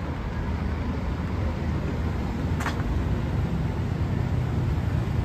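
Steady city street traffic noise, a low rumble of cars on the road. There is one brief click about two and a half seconds in.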